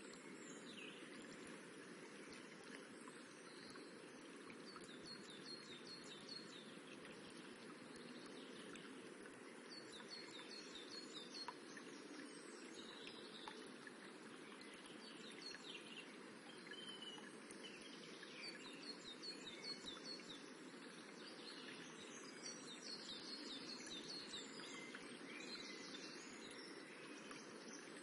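A faint, steady rippling of a small stream, with birds chirping over it: several short runs of quick, high repeated notes.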